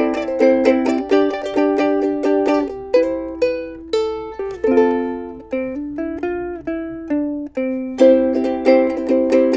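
Islander SMS-4 ukulele played solo: quick strummed chords, then a slower middle stretch of single notes and ringing chords, and fast strumming again about eight seconds in.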